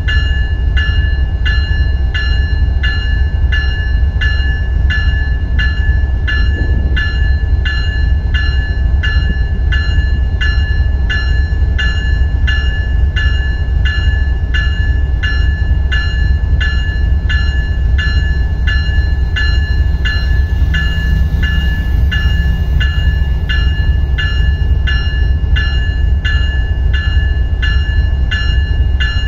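Locomotive electronic bell (E-bell) ringing steadily, about two strokes a second, over a loud, steady low rumble.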